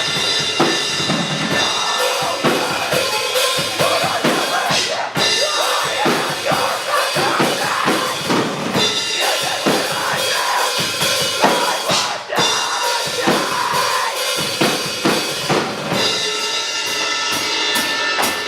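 Live metal band playing, the drum kit prominent with bass drum and snare hits over dense, loud instrumentation. The sound briefly drops out twice, about five and twelve seconds in.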